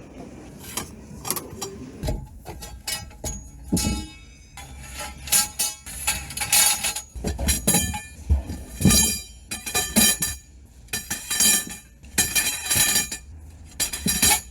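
Background music mixed with repeated irregular clanks and knocks, some with a short metallic ring.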